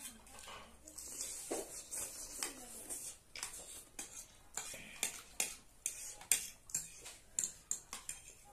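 Metal forks and spoons clinking and scraping on ceramic plates of noodles, in irregular clicks several times a second, mixed with the chewing and slurping of noodles being eaten.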